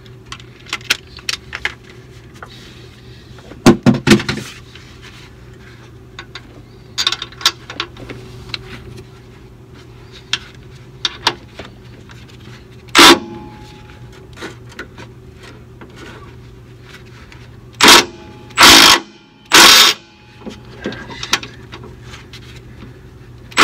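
Cordless impact wrench run in short, loud bursts on the airbag mounting nuts: one about halfway through, then a quick cluster of three near the end. Metal clinks of socket and nuts come in between, over a steady low hum.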